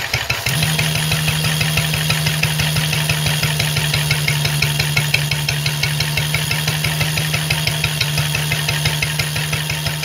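1939 Lister D stationary engine, converted to run on paraffin, running steadily under load with rapid, even firing beats while belt-driving a Lister Bros. impeller blower. About half a second in, a steady pitched hum sets in and holds alongside the engine beat.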